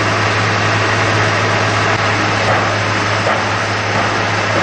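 Fire engine running steadily: a constant low engine hum under an even hiss.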